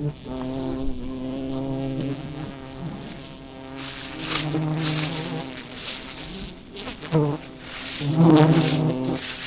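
A swarm of wild bees buzzing around their hive, a steady droning hum that swells louder twice, about four seconds in and again near the end.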